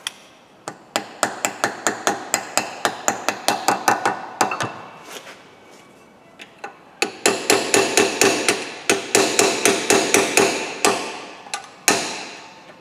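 Hammer striking the metal wheel hub of a 1995 Ford Transit in two runs of quick blows, about four or five a second, with a pause between them and a single last blow near the end. Each strike rings briefly.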